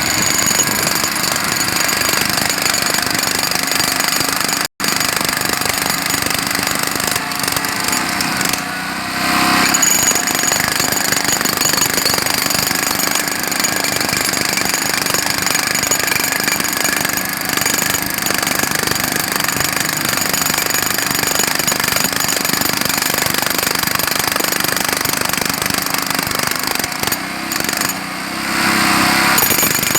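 Jackhammer hammering continuously in rapid strokes. It eases off briefly about 9 seconds in and again near the end, where the steadier running of the generator engine that powers it comes through.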